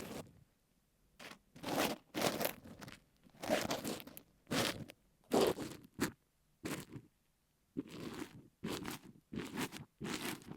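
Ear pick coated in kinetic sand scraping against an earphone microphone: a dozen or so short, separate scraping strokes with brief gaps, starting about a second in.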